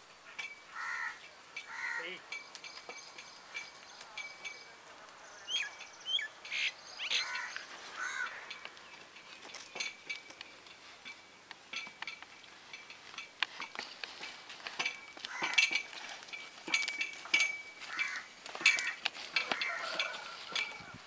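Birds calling in short chirps and calls over a thin, steady high tone, with scattered clicks and clinks.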